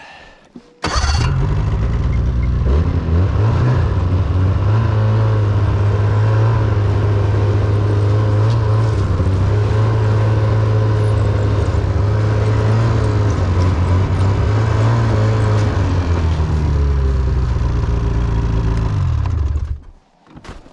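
Snowmobile engine running as it tows a load: it comes in suddenly about a second in, rises in pitch as it picks up speed, holds a steady drone, then drops back and stops shortly before the end.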